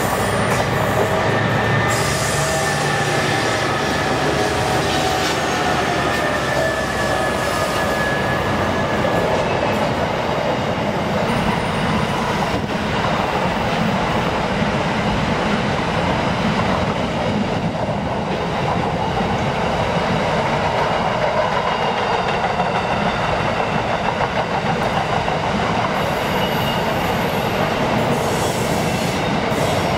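SCT Logistics container freight train passing close by. The diesel locomotives' engines are heard in the first several seconds, then the wagons roll past with steady wheel-on-rail noise and occasional high wheel squeal.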